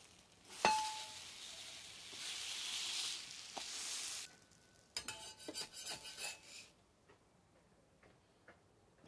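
A batter-topped slice of bread is flipped onto a hot iron griddle: a metal spatula clanks with a short ring on the plate, then the batter side sizzles for about three seconds. A few seconds later comes a quick run of metal spatula scraping on the griddle as it slides under the bread to lift it.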